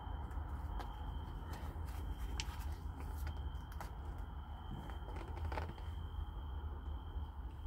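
Foil wet cat food pouch crinkling in a hand while kittens lick and chew from it, with scattered small clicks and smacks over a steady low rumble.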